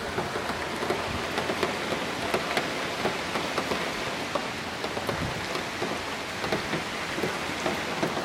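Heavy rain pouring down: a steady hiss of rainfall with many separate drop impacts splashing on hard surfaces.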